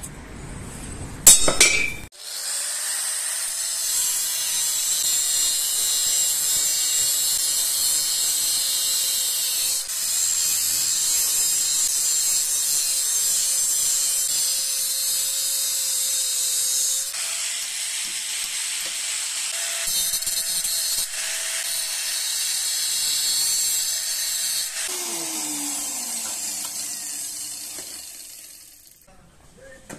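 Handheld angle grinder with a thin cut-off disc cutting 45-degree notches into stainless steel angle: a steady high hiss over the motor whine, with a few short breaks. Near the end the grinder is switched off and its motor winds down, the whine falling in pitch.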